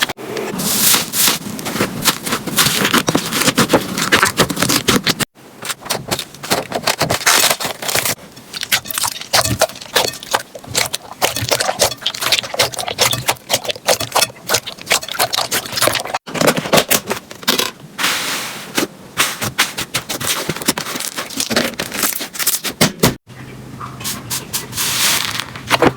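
Slime being squished and poked by hand, giving dense runs of crackling, popping clicks. The sound cuts off abruptly three times, about 5, 16 and 23 seconds in, as one slime clip gives way to the next.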